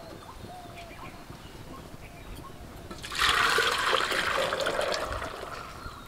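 Melted cane jaggery syrup being poured from a wok into a stainless steel pot. It starts splashing about three seconds in, runs for about two seconds, and then thins out toward the end.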